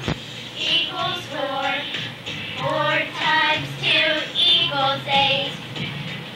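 A group of young girls singing a song together, with a short click right at the start.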